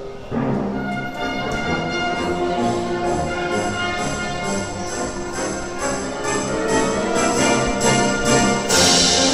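Full concert wind band playing, brass and woodwinds entering loudly together about half a second in and holding sustained chords, with a percussion crash near the end.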